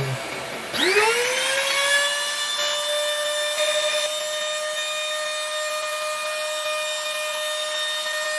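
Electric router motor spinning up about a second in, its whine rising quickly to a high steady pitch, then running at full speed with a steady high whine.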